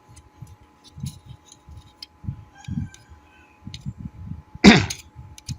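Removed laptop cooling fan from an Acer Aspire ES1-533 being handled and turned by hand: scattered light plastic clicks and soft knocks, with one louder knock near the end. The fan still turns freely, not seized.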